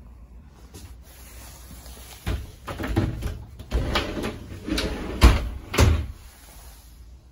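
Curved sliding doors of a travel trailer's corner shower being slid along their track and handled, with a run of knocks and rattles starting about two seconds in, the loudest near the end.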